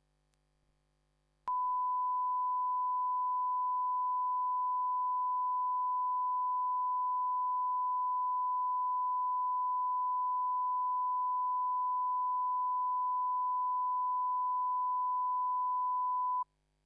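Television broadcast test tone played with a colour-bar test card: one steady, pure beep at a single pitch. It starts suddenly about one and a half seconds in and cuts off abruptly near the end.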